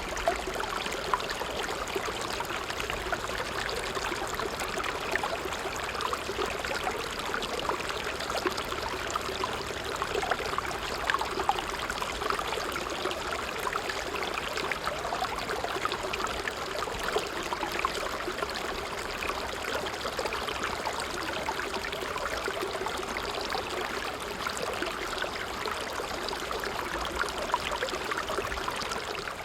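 A small stream flowing and trickling steadily, with many small splashes and gurgles.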